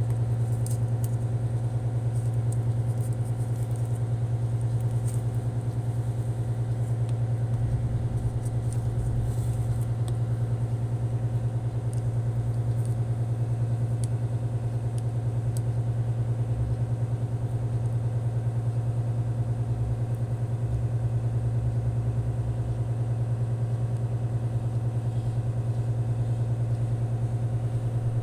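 A steady low hum with faint scattered clicks over it.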